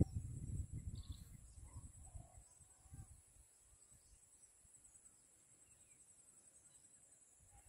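Quiet field ambience: a faint, steady, high-pitched insect trill, with low rumbling on the phone's microphone dying away over the first two seconds or so.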